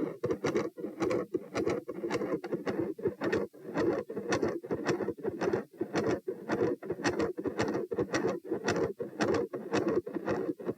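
Heartbeat recorded through a stethoscope with a continuous machinery murmur that swells and fades with each cardiac cycle, typical of a patent ductus arteriosus. Sharp crackling clicks of electrical interference run through it.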